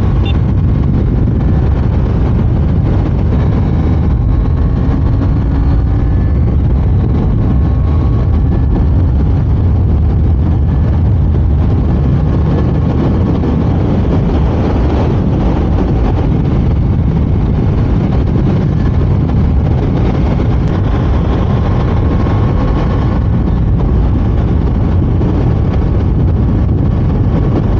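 KTM Duke 390's single-cylinder engine running at highway speed, speeding up to about 130 km/h and easing back, under a steady rush of wind on the microphone.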